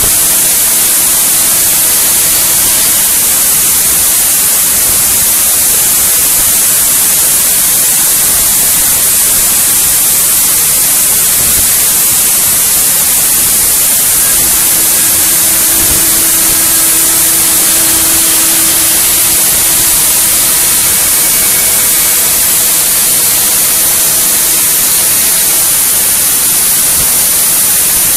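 IMA CNC machine running while cutting an aircraft wing rib: a loud, steady hiss, with a faint steady hum that comes in for a few seconds at the start and again through the middle.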